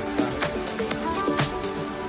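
Background music with a beat and a melody.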